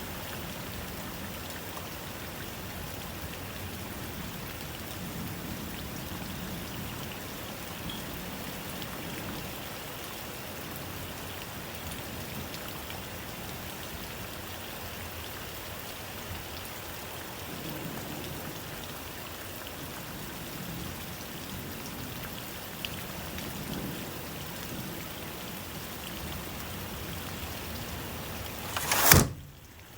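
Steady rain falling, an even patter of drops. Near the end a brief, loud whoosh swells up and cuts off, and the rain drops away sharply afterwards.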